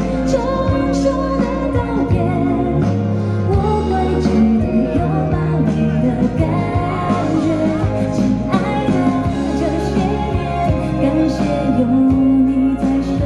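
A woman singing a slow, lyrical ballad live over steady instrumental accompaniment with held bass notes.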